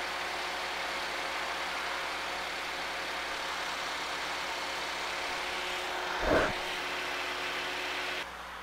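Suzuki Wagon R's 660 cc K6A three-cylinder twin-cam turbo engine idling steadily, just restarted on fresh oil so it can circulate before the level is checked. A brief louder sound comes about six seconds in, and the engine sound falls quieter near the end.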